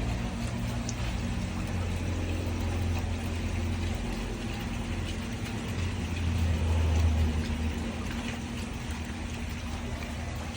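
A low, steady motor hum, swelling louder about six seconds in and easing off again.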